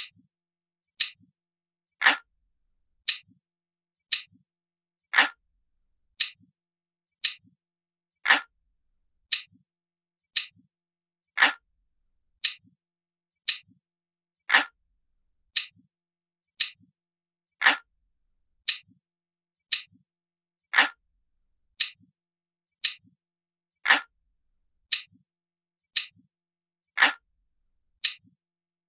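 Glass-like clock ticking, crisp and light, about one tick a second, with every third tick louder and fuller than the two between.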